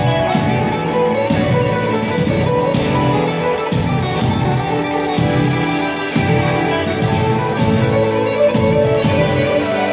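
Greek popular song played by a band: an instrumental passage led by plucked strings over a steady beat, with no singing.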